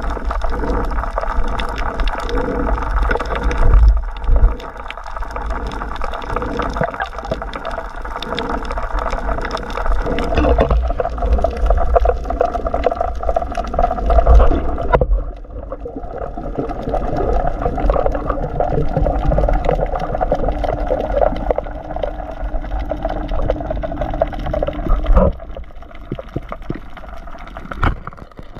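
Underwater water noise around a diver's camera: bubbling and sloshing with a low rumble and scattered knocks, over a steady hum.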